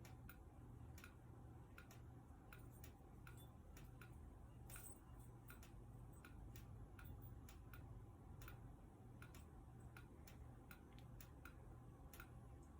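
Faint clicking of two fire alarm strobes (a Gentex SHG horn-strobe and a Gentex Commander 3) flashing after the horns have been silenced, about two to three clicks a second, unevenly spaced because the two strobes are out of sync, over a low hum.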